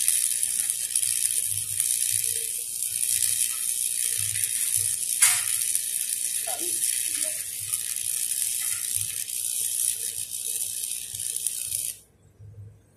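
Stick-welding arc crackling and hissing steadily as a bead is run on a steel pipe joint, with one sharp crack about five seconds in. The arc cuts off abruptly about a second before the end as the weld is stopped.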